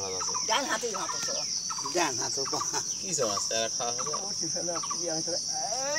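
Domestic fowl clucking in short, repeated calls over a steady high insect drone.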